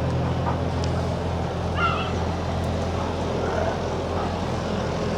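Steady low mechanical hum, with a short dog yelp about two seconds in and a fainter one a little later.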